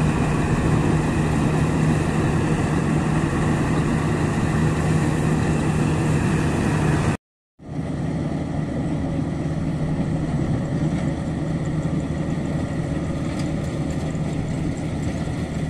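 Maxxi Bimo 102L rice combine harvester's engine running steadily while it harvests, with a constant low hum. The sound cuts out briefly about seven seconds in, then returns a little fainter, with the machine farther off.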